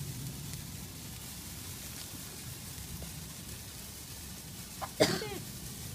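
Lit sparkler fizzing with a faint, steady hiss. About five seconds in, a brief voice sound breaks in.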